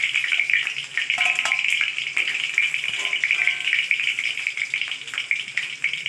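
Marinated chicken pieces frying in hot oil in an aluminium kadai: a steady crackling sizzle. Metal spatula scrapes and clinks against the pan as the fried pieces are lifted out.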